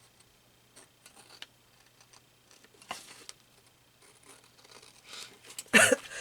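Scissors snipping and paper rustling as a small paper piece is cut out, in faint scattered clicks and crinkles. Near the end comes a loud cough from a person with a head cold.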